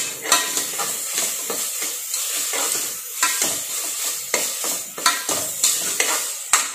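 Steel spoon stirring and scraping frying onions, tomatoes and green chillies in an aluminium pressure cooker, the salt just added being mixed in. A steady sizzle runs under repeated scrapes of the spoon against the pot, about one every half second to second.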